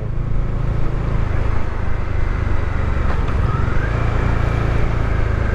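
Bajaj Dominar 400's single-cylinder engine running at cruise with steady wind and road rumble, heard from inside the rider's helmet. A faint rising tone comes in about three and a half seconds in.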